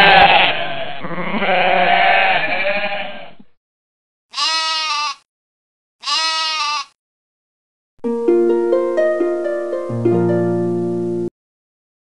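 Sheep bleating over one another for about three and a half seconds, then the same single bleat twice, a second and a half apart, then a short plucked, harp-like musical jingle of about three seconds.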